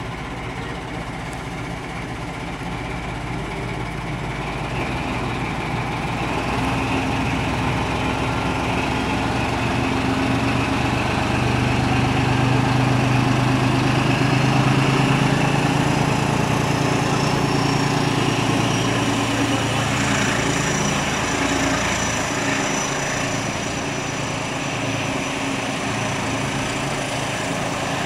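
Diesel engine of Class 14 diesel-hydraulic locomotive D9520, a Paxman Ventura V6, working as it hauls a passenger train slowly away from the platform, heard from an open carriage window. The engine note rises and grows louder over the first dozen seconds, then eases a little. A faint high whine joins in the second half.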